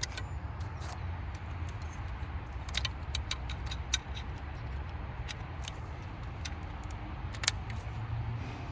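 Scattered small plastic clicks and taps of a replacement coil pack harness connector being handled and fitted onto the coil plug, over a steady low rumble.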